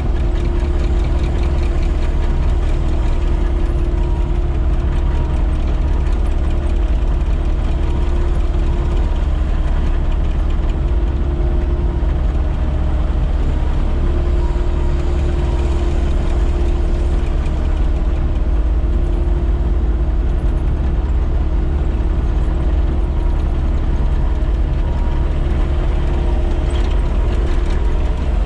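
Caterpillar 308E excavator's diesel engine running steadily while the machine drives along pavement, heard from inside the cab, with a deep rumble and a constant hum over it.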